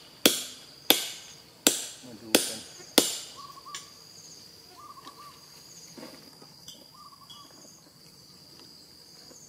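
Pegs being hammered into a tree trunk to climb it: five sharp strikes about two-thirds of a second apart, stopping about three seconds in. Insects trill steadily in the background.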